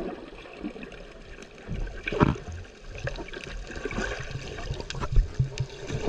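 Muffled underwater gurgling and bubbling around a camera held below the surface, with scattered small clicks and a louder burble about two seconds in.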